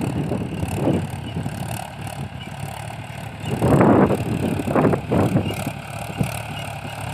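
Farm tractor's diesel engine running steadily while it pulls a seed drill through a field, with a louder rush of noise about four seconds in and a smaller one a second later.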